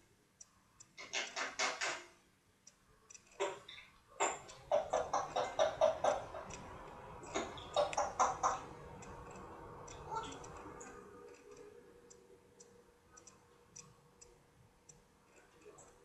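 African grey parrot chattering in bursts of short, rapidly repeated pitched notes, about a second in and again through the middle. Small soft clicks run throughout and are most noticeable near the end.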